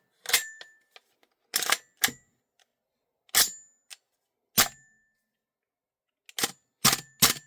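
Sharp metal clacks from an airsoft gas blowback rifle and its magazine being handled and fitted, some with a brief metallic ring. They come about once a second, then four in quick succession near the end.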